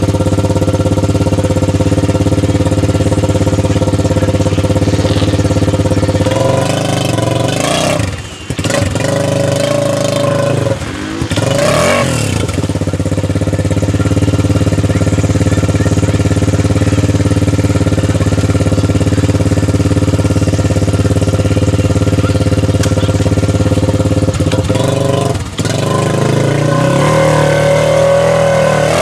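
ATV engine running hard at steady high revs, pulling through mud. The revs drop off and climb back three times: about eight seconds in, again about eleven seconds in, and near the end.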